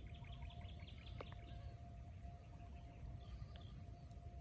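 A bird giving a quick run of short chirps, about eight a second, for the first second and a half. It is faint, over a low outdoor rumble and a steady high whine.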